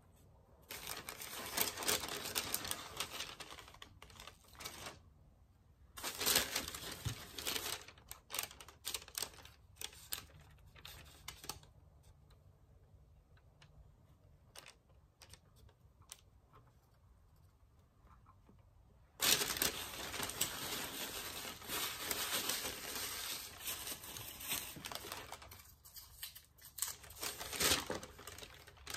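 Hands rustling and crinkling candy packaging, with scattered small clicks and taps as hard candies and little sugar figures are picked up and set on a gingerbread house. It comes in bursts: two short ones in the first seven seconds, then a longer stretch from about two-thirds of the way through.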